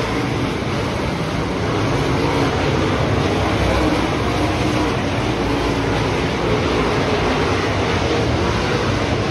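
A pack of dirt-track race cars running laps together, their engines blending into one loud, steady drone from the stands.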